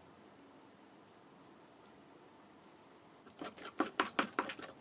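A faint, high, pulsing cricket-like trill over a quiet background. About three seconds in, rapid knocking starts, about four sharp strikes a second, typical of a utensil working food in a bowl or on a board.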